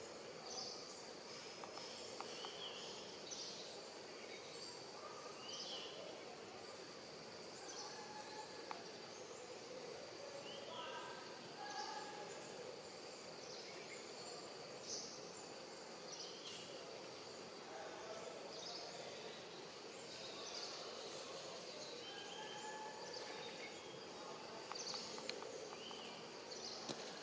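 Tropical forest ambience: short high bird calls repeating every couple of seconds, some dipping in pitch, over a faint steady hum of insects.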